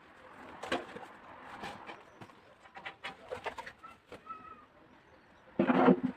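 Scattered light knocks and clicks, then about half a second of a louder low-pitched sound with a steady pitch near the end.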